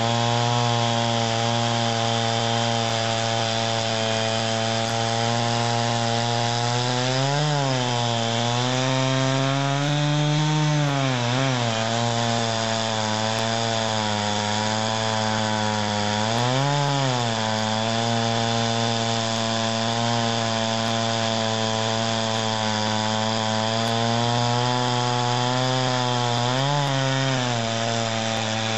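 Chainsaw running steadily as it cuts through wood, its engine pitch rising briefly a few times as the chain frees up in the cut.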